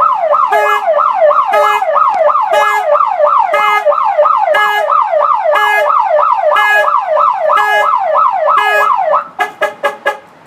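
Autopage car alarm siren on a Chevy Silverado pickup, set off to test it: a loud siren of quick falling sweeps, about three a second. It cuts off about nine seconds in, followed by a quick string of short chirps.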